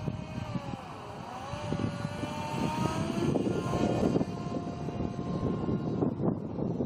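Electric motor and propeller of an RC microlight trike whining in flight, the pitch dipping about a second in, then rising and holding steady. Gusty wind rumbles on the microphone throughout.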